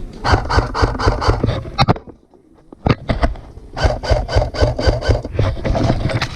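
Rapid crunching footsteps in snow, several a second, in two runs, broken by a pause of about a second about two seconds in.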